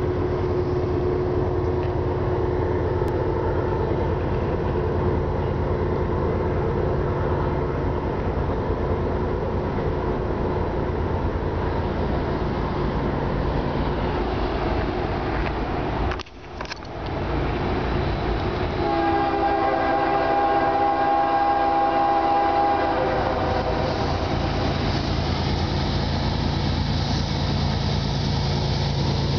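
Approaching CSX double-stack freight train: a steady low rumble throughout, with the locomotive's horn held once for about four seconds past the middle. The noise grows louder near the end as the train closes in at speed.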